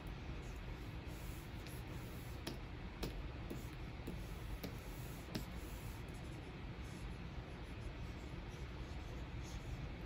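Stylus tip scratching across the glass screen of a Wacom Cintiq 24 Pro pen display, with a handful of light taps between about two and five and a half seconds in, over a steady low hum.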